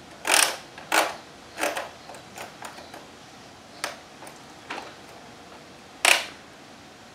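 Hand-cranked plastic winch on a Bruder toy crane truck clacking in irregular clicks as the hook is wound up, with one louder clack about six seconds in.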